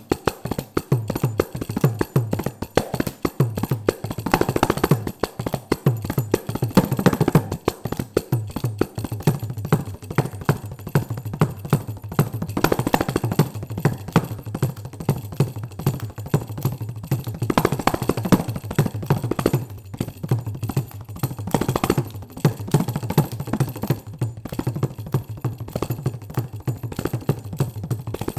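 Kanjira, the South Indian frame drum, played solo: a fast, unbroken run of finger strokes on the drumhead, with low notes under it and louder accented strokes every few seconds.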